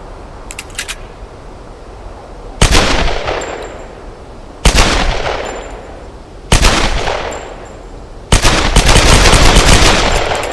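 Semi-automatic pistol firing: a few light clicks, then three single shots about two seconds apart, each followed by a long echoing tail, and then a rapid string of shots for about two seconds near the end.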